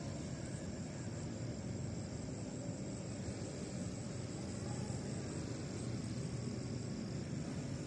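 Night-time outdoor ambience: crickets trilling in a steady high tone over a low, even rumble.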